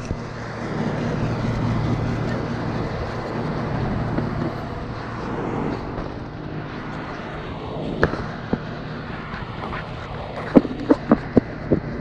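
Steady mechanical hum of rooftop air-conditioning equipment running. A couple of clicks come partway through, and a quick run of sharp clicks and taps comes near the end.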